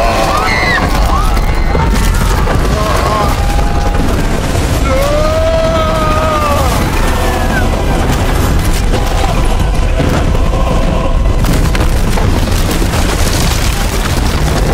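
Continuous deep rumbling and crashing of a stone temple collapsing as its pillars give way, with a man's strained grunting and voices crying out over it.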